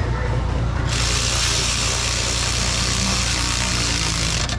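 A Snap-on cordless ratchet runs in one steady spell of about three and a half seconds, starting about a second in and stopping near the end, as it drives down a valve cover bolt.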